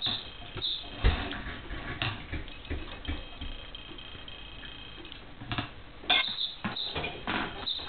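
Irregular taps, knocks and clicks of a cat batting and rolling with a toy mouse on a hardwood floor, its paws and the toy striking the boards. One loud knock about a second in, fewer in the middle, then a quick run of them near the end.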